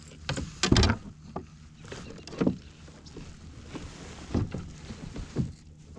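A handful of irregular knocks and bumps against a plastic kayak's hull and deck fittings as gear is handled, about six in all, the loudest about a second in.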